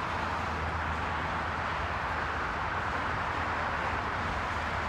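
Steady road and vehicle noise: an even rushing with a low hum underneath, without a break.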